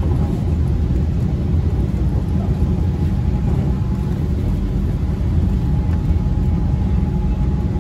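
Steady low rumble and whir inside a rubber-tyred MRT Yellow Line monorail car (Alstom Innovia Monorail 300), with a faint steady tone over it.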